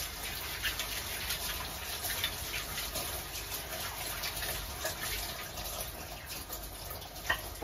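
Kitchen tap running into a sink while plates are washed by hand, with small clinks of dishes now and then.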